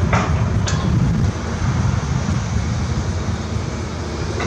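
Volvo tracked excavator demolishing a wooden building: a steady low diesel rumble, with sharp cracks and knocks of timber breaking in the first second and once near the end. Wind buffets the microphone.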